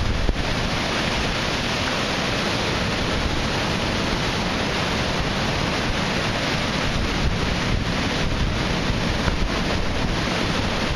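Storm-driven surf crashing and washing around the pier pilings, a steady, loud roar of breaking water, with wind rumbling on the microphone.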